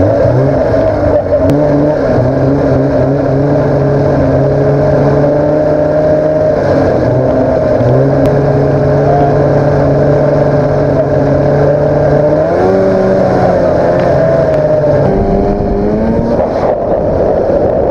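Arctic Cat Panther 570 two-stroke snowmobile engine running under way at a steady pitch, climbing in pitch twice in the last third as the throttle is opened.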